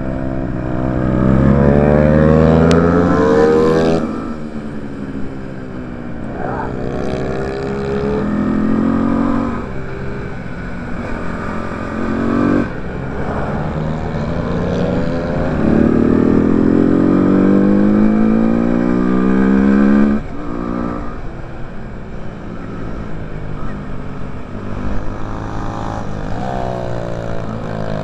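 Onboard sound of a bucket racer's Suzuki FXR150 single-cylinder engine at racing speed, its revs climbing in long rising sweeps and then dropping away suddenly, about five times over.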